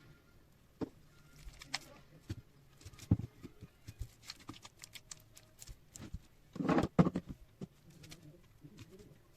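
Slime being squeezed and poked, with many irregular small clicks and pops from the air pockets. A longer, louder squelch comes about two-thirds of the way through.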